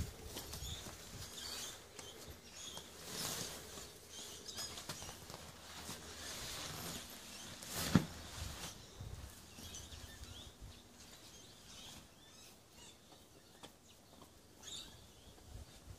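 Nylon fabric and spring frame of a pop-up shower tent rustling and shifting as it is handled and turned over, with one sharp knock about halfway through.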